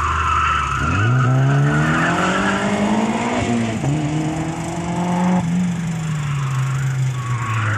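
Toyota Celica driven hard through a corner: the engine revs climb, dip briefly about three and a half seconds in, climb again, then ease off. The tyres squeal in the first two seconds and again near the end.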